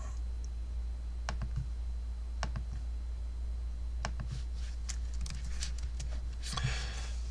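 Computer keyboard and mouse clicks, single taps with irregular pauses between them, over a steady low hum. A short rustle comes near the end.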